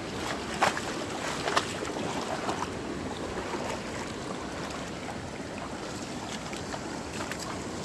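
River water rushing steadily over stones and rapids, with two brief louder sounds within the first two seconds.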